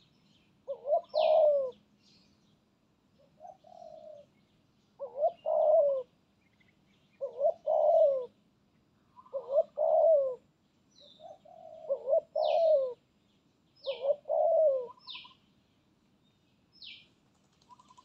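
Spotted dove cooing: a repeated phrase of a few coos about every two seconds, one phrase quieter than the rest. Short high chirps of a smaller bird come in here and there, mostly in the second half.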